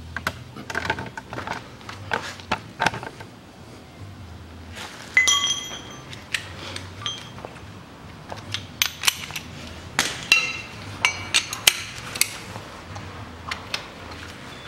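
Metal hand tools clinking and clattering as a socket and long extension bar are handled and fitted onto the crankshaft pulley bolt, with irregular sharp clicks and two short bouts of metallic ringing, about five and about ten seconds in.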